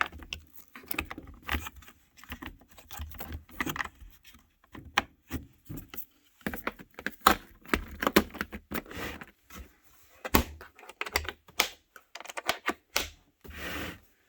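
Irregular clicking and clattering of hard objects being handled, with a short scraping rustle near the end.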